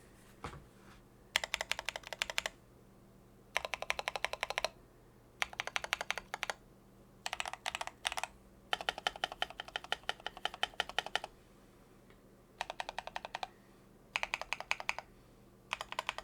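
Typing on a Mercutio40 mechanical keyboard with Akko Lavender switches in Mill-Max sockets, Tempest-modded with added foam. The keystrokes come in quick runs about a second long, separated by short pauses, with one longer run of a couple of seconds near the middle.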